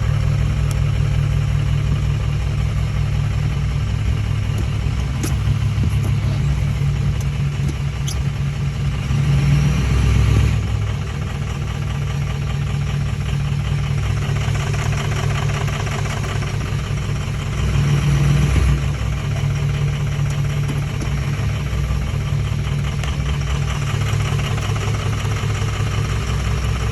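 2004 6.0-litre V8 engine idling roughly, the unevenness the owner is showing as a rough-idle complaint; it swells briefly twice, about ten and eighteen seconds in.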